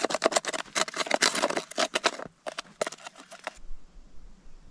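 Gloved hands rubbing and clapping together to knock snow off: a quick, irregular run of dry crunching scrapes that stops about three and a half seconds in, leaving only a faint low rumble.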